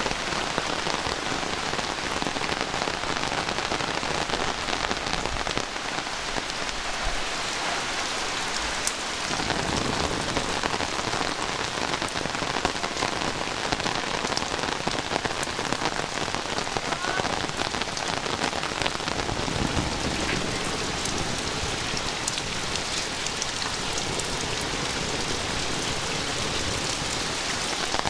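Heavy rain pouring steadily, with the sharp ticks of individual drops striking close by. A deeper rumbling layer joins about ten seconds in.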